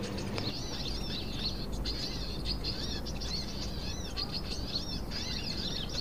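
Sunbirds chirping: a steady string of short, high chirps from several birds.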